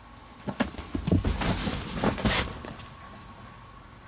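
A cat scrambling inside a fabric pop-up cat tunnel: a few knocks and paw thumps, then rustling of the tunnel fabric, loudest about two seconds in and dying away soon after.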